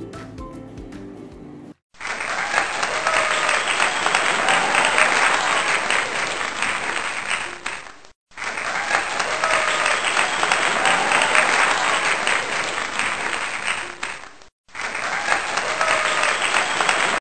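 Recorded crowd applause with some cheering, played as a clip that starts over twice with brief silent gaps between. The end of a piece of background music fades out just before it.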